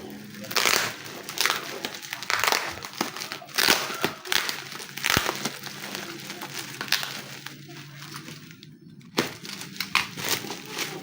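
Plastic parcel packaging crinkling and rustling in irregular bursts as it is unwrapped by hand.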